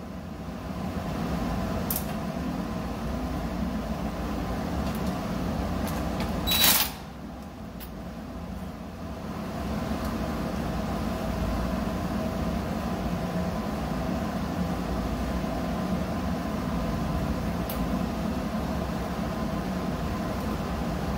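Steady low mechanical hum, like a fan or air-conditioning unit running, with one short loud noise about six and a half seconds in.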